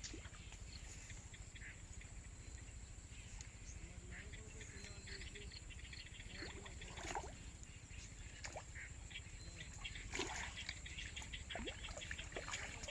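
Outdoor ambience with animal calls: repeated short chirps and rapid trains of ticks, a few sharp clicks and a brief gliding call, over a steady low hum.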